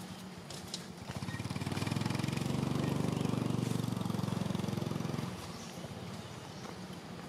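A motor engine's steady low note with a rapid pulsing. It grows louder about a second in, holds, and drops away after about five seconds, the way a passing vehicle does.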